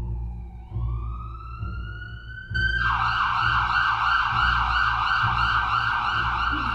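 Ambulance siren: a slow wail that dips and climbs back up, then about two and a half seconds in it switches to a fast warble of about three cycles a second.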